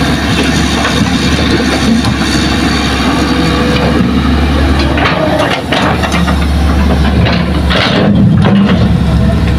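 Hitachi hydraulic excavator's diesel engine running steadily under load as the machine works. A few short scraping, crunching sounds come in the second half as the bucket digs into soil and rock.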